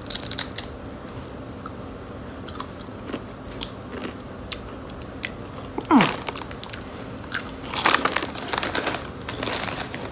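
Thin Lay's potato chips being bitten and chewed, with sharp crisp crunches right at the start and more crunching after. A short falling voice sound about six seconds in is the loudest moment, and the foil chip bag crinkles near the end.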